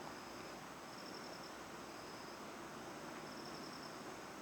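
Crickets chirping faintly in short trills that recur every second or two, over a faint steady hiss.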